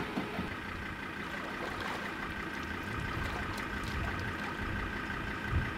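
A vehicle engine idling steadily, with water lapping against the boat and trailer. A sharp click right at the start and a dull thump near the end.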